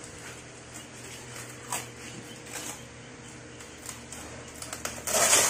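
Cardboard box being opened by hand: packing tape peeled and cardboard scraped, with small scattered rustles and a loud ripping burst near the end.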